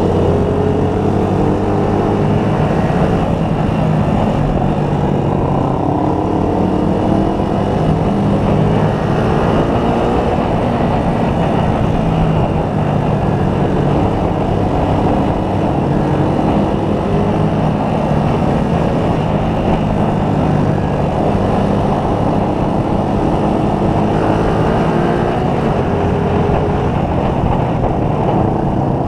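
Motorcycle engine running at road speed, its pitch climbing and dropping back several times as it accelerates, over a steady rush of wind and road noise.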